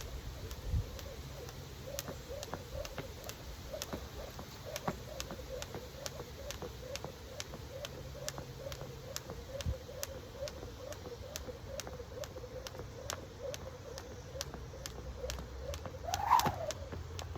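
Jump rope skipping: the rope slapping the floor in a steady, even rhythm of quick light clicks, with one short louder sound near the end.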